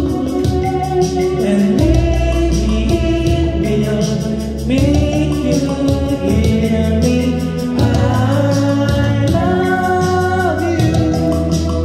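A man singing a slow pop ballad karaoke-style into a microphone over a recorded backing track.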